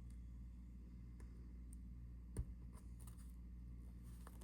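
Faint light clicks from handling a small wristwatch and its strap, with one sharper tap about halfway through, over a low steady hum.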